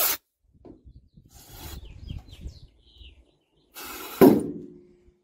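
A screwdriver scraping and rubbing at a bolt behind a car's plastic fender panel, then a sudden loud clank about four seconds in that rings briefly and fades.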